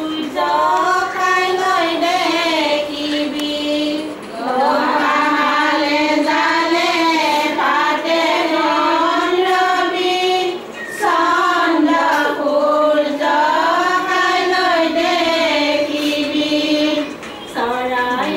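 Women's voices singing a traditional Assamese ceremonial song together, unaccompanied, in long held phrases. The singing breaks off briefly about four, eleven and seventeen seconds in.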